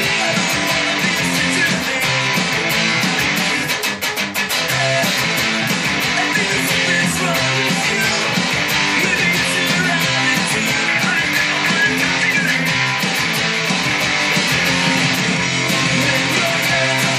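Squier Stratocaster electric guitar strumming fast punk-rock chords along with a band recording, drums keeping a quick, steady beat; the music briefly drops back about four seconds in.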